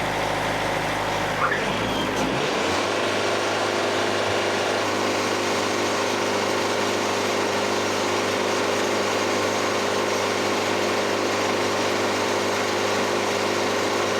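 Wood-Mizer LT70 band sawmill's engine running just after start-up. About two seconds in it speeds up to full throttle, then runs at a steady, unchanging pitch.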